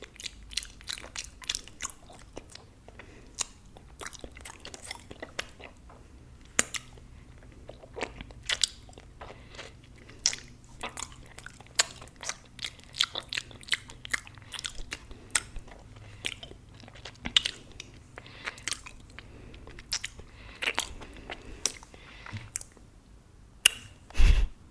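Close-miked wet mouth sounds of fingers being sucked and licked: irregular smacks, slurps and pops. A louder low thump comes near the end.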